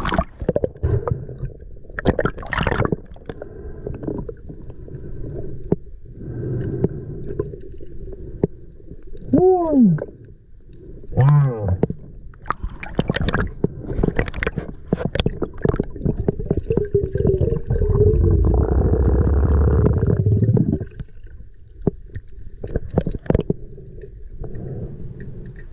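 Underwater sound heard through a camera housing during a freedive: muffled water movement with many knocks and clicks, two short squeaky tones that rise and fall about ten seconds in, and a louder rushing noise for a couple of seconds about eighteen seconds in.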